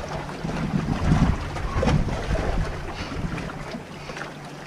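Wind buffeting the microphone over waves washing onto the beach, with irregular low rumbles and a few swells in the surf noise.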